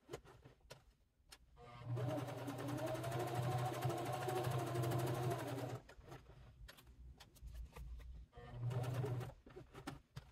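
Domestic electric sewing machine stitching through cork fabric: a steady motor hum with rapid needle strokes for about four seconds starting about two seconds in, then a short burst of stitching near the end, with scattered clicks in between.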